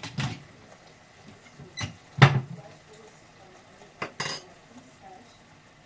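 Pots and metal utensils clattering in a kitchen: four short, separate knocks, the loudest a little over two seconds in.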